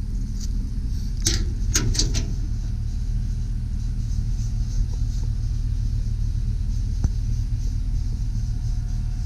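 A quick run of metallic clicks and clatter about a second in, as a steel utility-body compartment door is unlatched and swung open, over a steady low rumble.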